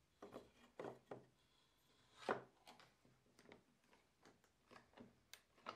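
Faint, irregular clicks and knocks of a quick-release bar clamp being handled and adjusted against a wooden jig fence, with one louder knock about two seconds in.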